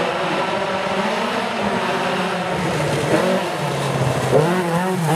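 Rally car engine revving hard as the car approaches, its pitch rising and falling with throttle and gear changes, with several quick rising revs in the last couple of seconds.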